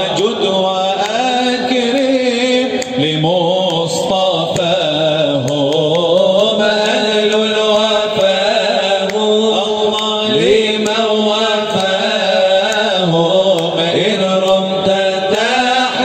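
A nasheed's wordless vocal passage: a male voice chants a slow, sliding melody over a steady hummed drone.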